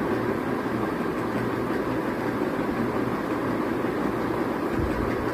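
Steady rushing machine noise with a low hum underneath, unchanging throughout.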